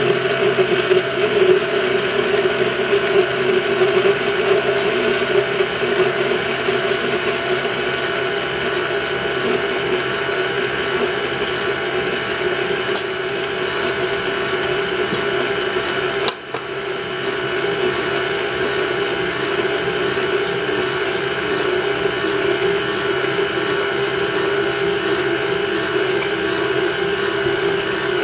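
KitchenAid tilt-head stand mixer running steadily, its motor hum constant as the attachment churns flour into a stiff dough in a stainless steel bowl. A sharp click and a brief dip in the hum come about halfway through.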